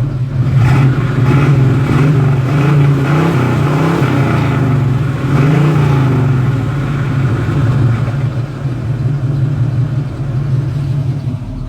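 Lowrider box Chevrolet Caprice driving, with a steady engine hum and the pitch rising and falling as it speeds up and eases off.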